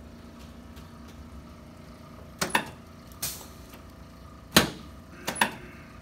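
Chiropractic adjusting table knocking and clicking as a patient shifts face down on it, with the face-cradle paper rustling briefly. There are about half a dozen sharp knocks over a low steady hum, the loudest about four and a half seconds in.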